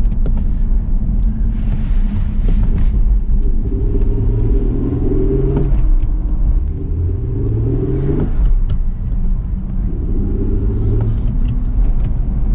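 Acura TL's J-series V6 heard from inside the cabin, accelerating up through the gears over a steady low road rumble. The engine note climbs, drops sharply at an upshift about six seconds in, climbs again and drops at a second upshift about eight seconds in, then climbs once more.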